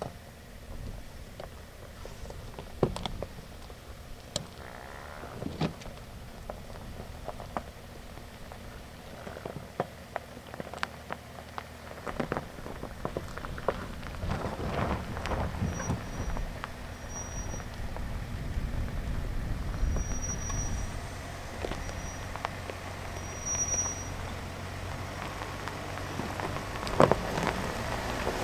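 Pickup truck crawling over rough, rocky dirt, heard from inside the cab: a low steady rumble under scattered knocks, clicks and gravel crunching from the tyres and body. The knocks grow denser from about halfway through and again near the end.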